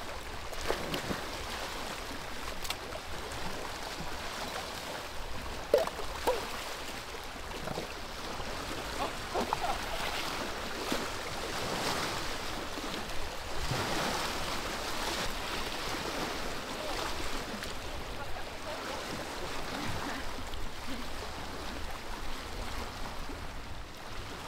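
Small lake waves lapping and washing against a rocky shoreline, a steady wash of water with a few sharper splashes.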